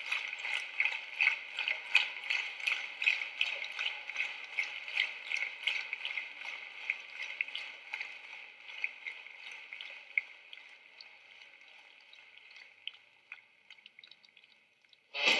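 Audience clapping in unison, about two to three claps a second, dying away over about ten seconds.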